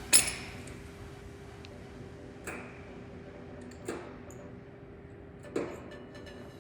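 Dent-pulling work with a stud welder on a car body panel: four sharp metallic clacks about one and a half seconds apart, the first the loudest, over a faint steady hum.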